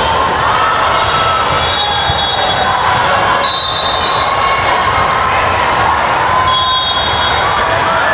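Gym sounds of a volleyball rally: the ball striking hands and floor, with short, high sneaker squeaks on the court over a steady background of spectator chatter.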